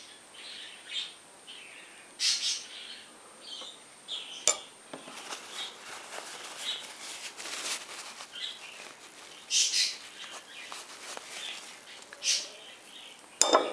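Budgerigar chick giving short, high begging chirps every couple of seconds while being hand-fed from a spoon. Sharp clicks come about four seconds in and again near the end.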